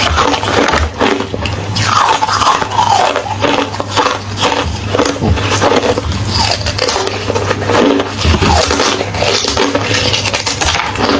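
A person biting and chewing crunchy hollow ice, with rapid, continuous crunches and cracks.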